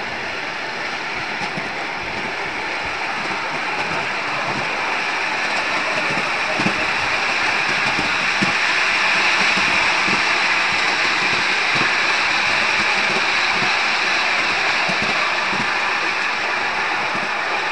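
Ride-on 7.25-inch gauge miniature steam train running along its track: a steady hissing rush with scattered low knocks from the running gear, growing louder until about halfway and then easing slightly.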